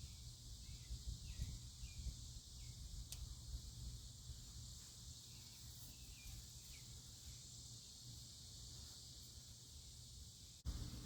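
Insects trill steadily as a high, even hiss, with a few faint short chirps over it and low rustling and handling noise beneath. The sound changes abruptly near the end.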